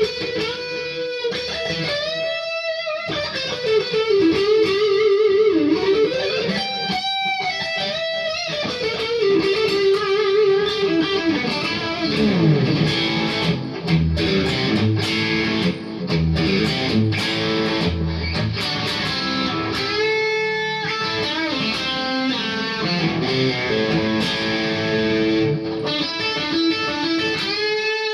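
Kogai Tele 72 Custom electric guitar played through a Randall RG50TC tube amp and Vintage 30 speaker: an improvised lead of single-note lines with string bends and vibrato, broken up by fuller chordal passages in the middle. The amp is picked up by the camera's own microphone rather than recorded direct.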